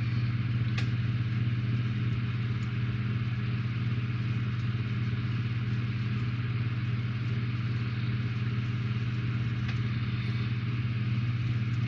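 Steady low mechanical hum, even and unchanging, with a couple of faint clicks.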